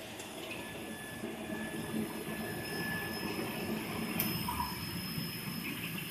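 Induction heating equipment and its cooling gear running: a steady noisy hum with faint, steady high-pitched whines, and a single sharp click about four seconds in.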